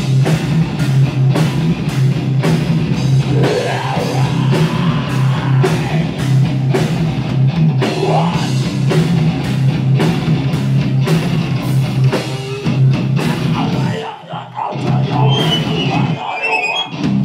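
Heavy metal band playing live and loud: distorted electric guitars over a pounding drum kit, with a brief break about fourteen seconds in.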